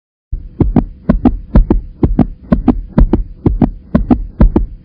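Intro sound effect of paired low thumps in a steady heartbeat-like rhythm, about two pairs a second, over a faint steady hum. It starts about a third of a second in and stops abruptly at the end.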